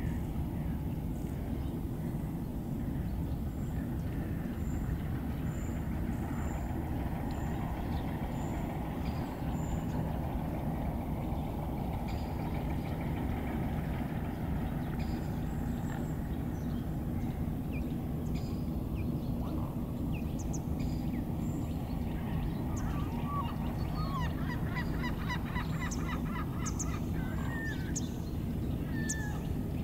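Waterbirds calling on a lake, with a run of repeated honking calls in the last few seconds, over a steady low rumble. A few seconds in there is a row of faint, high, evenly spaced chirps.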